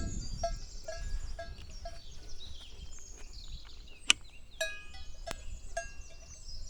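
A cowbell clanking in uneven strokes, roughly two a second, each stroke ringing at the same few pitches, with a pause midway. Small birds chirp and twitter in the background.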